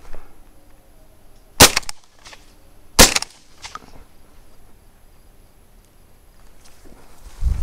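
Shotgun firing twice, two sharp shots about a second and a half apart.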